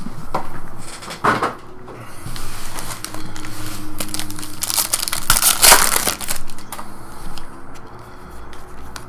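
Baseball card pack wrapper being crinkled and torn open by hand: irregular crackling bursts, the loudest a little past halfway.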